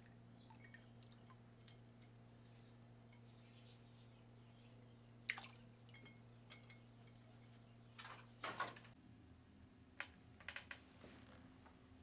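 Near silence over a steady low hum, with a handful of faint drips and light taps: water draining from a wet glass bottle just lifted out of a water basin.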